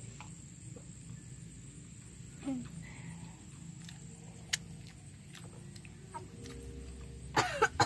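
Faint scattered clicks of chewing and finger-licking over a steady low hum, with a short cluster of louder sharp sounds near the end.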